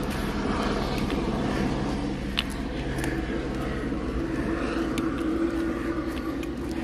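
Steady low rumble of distant motor traffic, with an engine drone holding a few steady tones, and a few sharp clicks, the clearest about two and a half seconds in.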